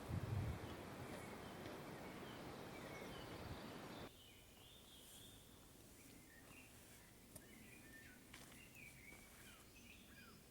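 A steady outdoor rushing noise with a few low thumps at the start, which cuts off abruptly about four seconds in. Then quiet outdoor ambience follows, with small birds chirping repeatedly.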